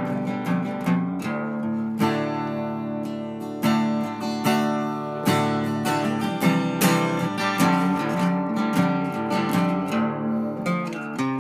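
Background music: an acoustic guitar strumming and picking chords in a steady rhythm.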